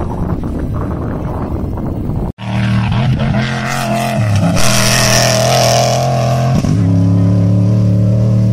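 Cross-country rally vehicle engines running hard on a gravel special stage. There is an abrupt cut about two seconds in, then a steady, loud engine note with two brief dips in pitch, like lifts or gear changes, and a burst of hiss in the middle.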